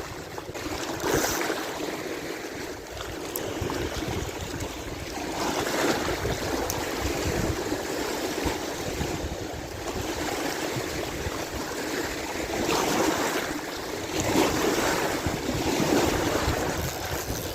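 Lake waves washing against the dam shore, swelling and ebbing every few seconds, with wind rumbling on the microphone.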